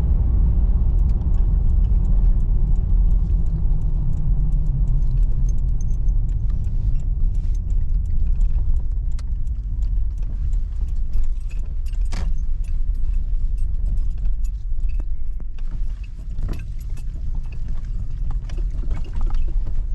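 Steady low road and engine rumble inside the cabin of a moving Toyota 4Runner, with scattered light rattles and jingles from loose items, and a couple of sharper clicks.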